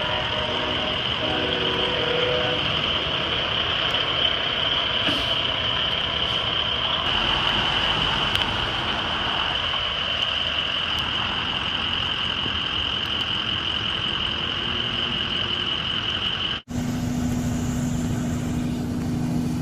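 Semi truck engine running over a steady rushing noise. It cuts off abruptly near the end to another vehicle's lower, steady engine hum.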